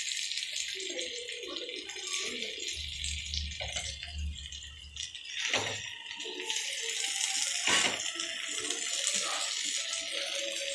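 Masala-coated fish pieces sizzling in oil on a dosa tawa, with a spatula scraping and knocking on the pan as they are turned. Two sharp scrapes stand out, about five and a half and nearly eight seconds in.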